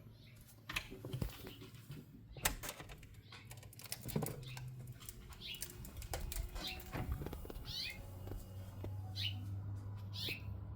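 House finches chirping outdoors: several short chirps that fall in pitch, starting about halfway through. In the first half, scattered clicks and knocks, like a door and footsteps.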